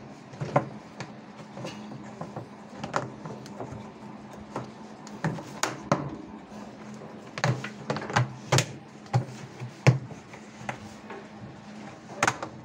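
Hard plastic clicking and knocking as a top-load washing machine's plastic tub cap is pressed and clipped into place around the tub rim: a string of irregular sharp clicks, loudest about ten seconds in.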